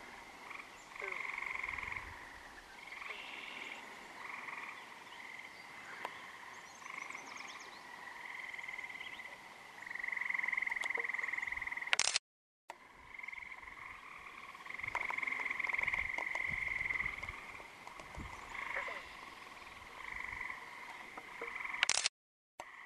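A chorus of frogs calling, with overlapping calls a second or two long that keep coming and going. Twice, about halfway through and near the end, a click is followed by a half-second break in the sound.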